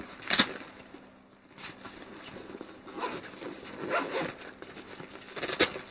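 Fabric camera shoulder bag being handled and unzipped: short zipper rasps and nylon rustling, the sharpest about half a second in and another near the end.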